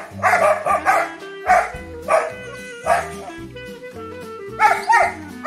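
Dogs barking in short, sharp barks at irregular intervals, several close together near the start and again near the end, over background music.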